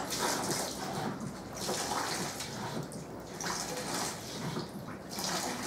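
Water pouring from a pump-fed faucet into a plastic sink basin, the splashing swelling and easing every second or so.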